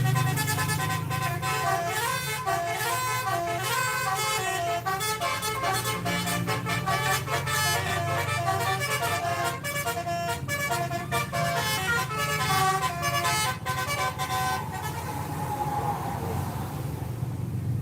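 A bus's telolet horn, a set of musical air horns, playing a fast melody of stepping notes over the bus's running engine. The tune stops about fifteen seconds in, leaving the engine.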